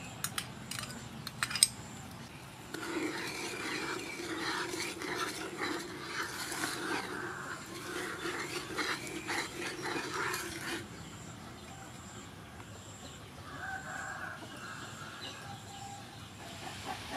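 A metal spoon clinks against a bowl and pan a few times in the first two seconds as sugar is added. Then a drawn-out animal calling sounds in the background for about eight seconds, with a shorter call again near the end.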